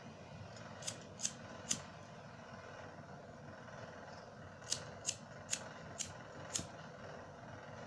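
Cigarette lighter clicked repeatedly. Three sharp clicks come about a second in, then five more, roughly half a second apart, from near the fifth second.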